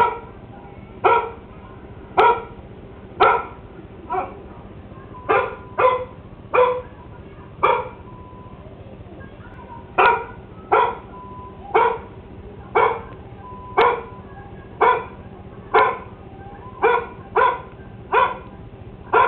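A dog barking in single barks, about one a second, with a break of about two seconds partway through.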